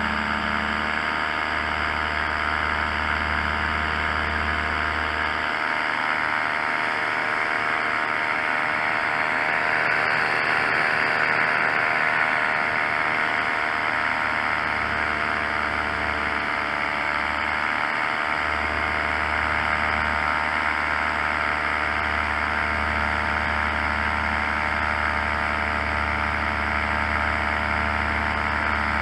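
Paramotor's engine and propeller running steadily at a constant throttle in flight.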